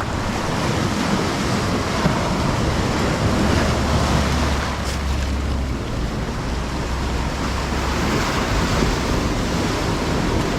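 Surf washing onto a beach in a steady, even rush, with wind buffeting the microphone in a low rumble.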